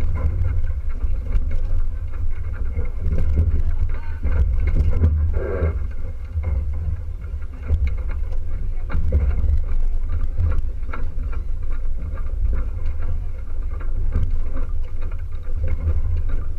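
Wind buffeting the microphone on a small sailboat under way, a steady low rumble, with water rushing and slapping along the hull.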